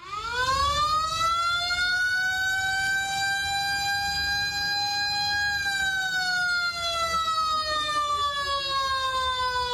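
Municipal flood warning siren sounding one long wail. It winds up quickly at the start, holds a steady high pitch for about five seconds, then slowly falls in pitch. It is the alert telling residents to move their belongings to higher ground as floodwater comes in.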